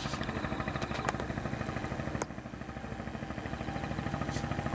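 Boat engine idling with a steady, evenly pulsing low throb, with a sharp click about two seconds in.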